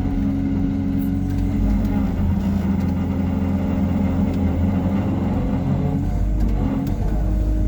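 Hyundai R140W-7 wheeled excavator's diesel engine running steadily while the machine works, a constant low drone with a steady hum; the low rumble shifts about six seconds in.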